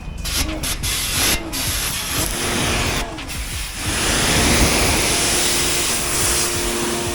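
Dylect 1900W electric pressure washer's high-pressure water jet hissing as it sprays a motorcycle, cutting out briefly a couple of times in the first few seconds, then spraying steadily from about four seconds in.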